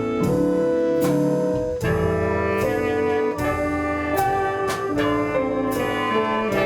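Instrumental music with saxophone and brass playing a melody over sustained chords, notes changing about every half second.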